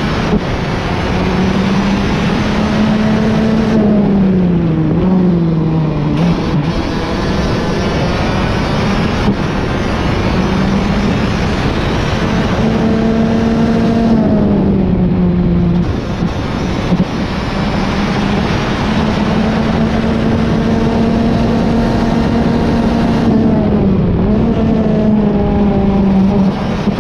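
Rotax DD2 kart's 125 cc single-cylinder two-stroke engine at racing speed, heard onboard. The engine note climbs along the straights and drops sharply off throttle into corners, about five seconds in, again around fifteen seconds, and briefly near the end, over a steady rushing noise.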